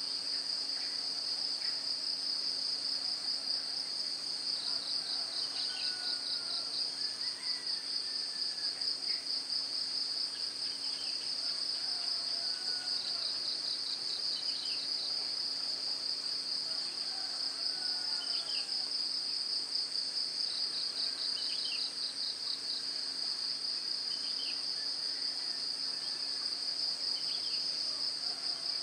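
Insects trilling in a steady, high, finely pulsing chorus, with short bird calls scattered through it.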